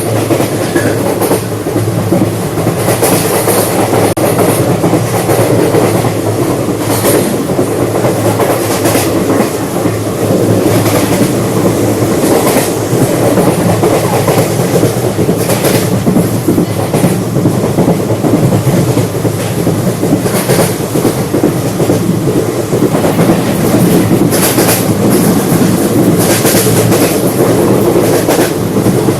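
Indian Railways express train running at speed, heard from inside a passenger coach: a steady rumble of wheels on rails, with scattered clicks and knocks from the track and coach.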